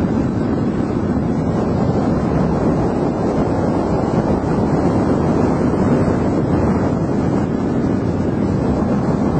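Wind buffeting the microphone: a loud, steady rumbling noise with no engine or propeller tone standing out.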